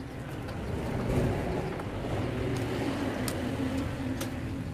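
Greens and seafood stir-frying in a metal wok over a gas burner: a steady roar and sizzle that swells about a second in, with a few sharp clicks of chopsticks and ladle against the pan.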